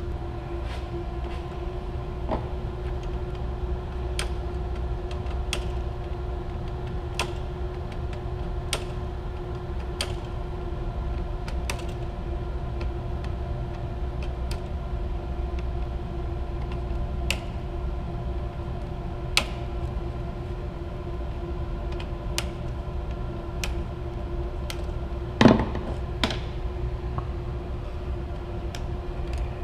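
A steady low machinery hum with a constant pitched drone runs throughout. Short light clicks come about every second and a half, and one louder knock falls near the end.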